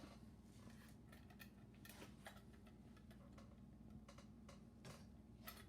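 Near silence over a faint steady hum, with scattered faint clicks and taps of metal clutch plates (friction discs and steels) being handled and stacked into the clutch pack.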